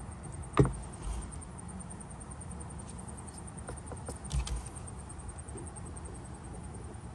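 A sharp knock about half a second in, then a few light clicks and a dull thump about four seconds in, over a steady low background rumble: handling knocks of hard objects.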